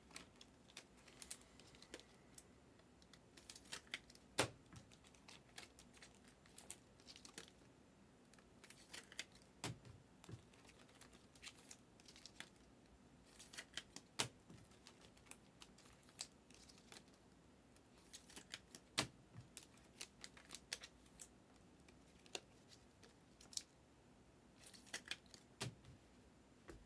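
Faint handling of trading cards and foil pack wrappers: scattered clicks, taps and crinkles as packs are torn open and cards are flipped and stacked, with a few sharper taps standing out.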